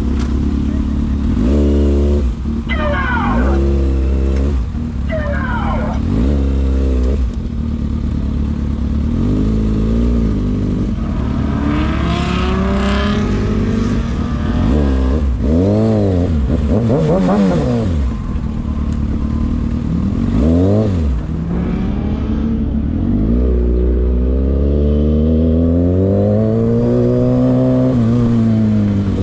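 Car engines revving hard again and again, their pitch climbing and dropping in quick sweeps, with one longer rise and fall near the end.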